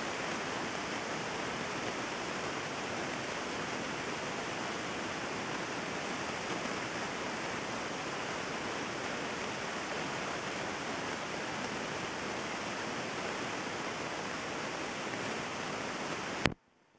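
Heavy rain pouring steadily as an even hiss, with no distinct thunder. It ends abruptly near the end with a sharp click, and the sound drops to a much quieter level.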